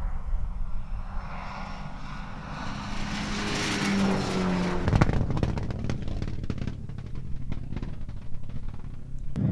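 Rally car on a gravel stage running at speed towards and past the microphone, engine note building to its loudest about five seconds in. A scatter of sharp ticks from thrown gravel and stones follows for several seconds as it goes by.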